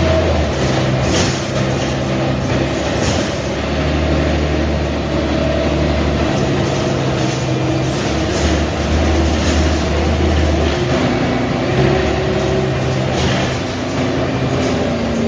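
Mercedes-Benz O345 Türk city bus driving: the diesel engine's low hum shifts in pitch and strength every few seconds as it pulls and eases off, over steady road and body noise.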